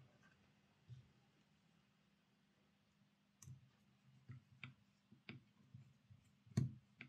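Faint, scattered clicks and taps of small parts being handled on a workbench as a model locomotive's motor bracket is fitted back onto the chassis. The taps come irregularly, more often in the second half, with the loudest one near the end.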